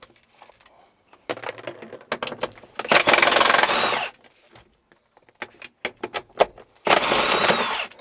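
Cordless drill spinning a 12 mm socket to undo the handbrake lever's mounting bolts, in three short runs of the motor, the loudest about three seconds in and another near the end. Between runs the socket and loose bolts clink.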